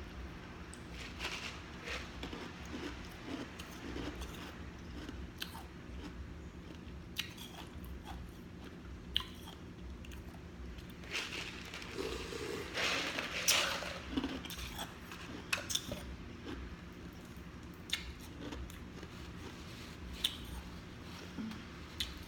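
A person biting and chewing food close to a microphone: sausage links with crisp, snappy skin, and chips. Sharp crunches come irregularly throughout, with the loudest run of crunching about halfway through.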